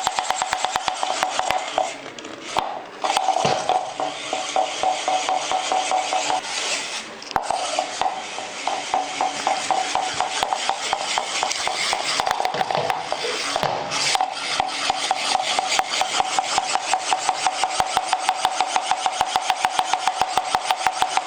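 Small motor in a 3D-printed Bashbot motor module running inside a 3D-printed plastic Mario Kart shell: a steady whine with a fast, even clicking rattle of plastic. It cuts out briefly a few times.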